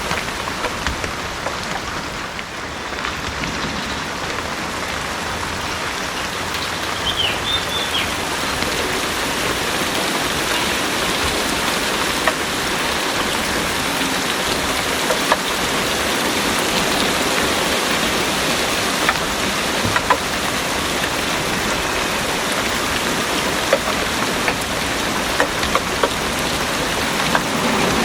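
Heavy rain falling steadily, a dense even hiss with scattered sharper drop splashes.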